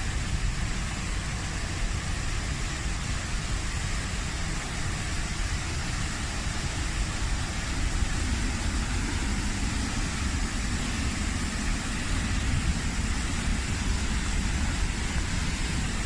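A waterfall's steady rush of falling water, with a strong low rumble underneath.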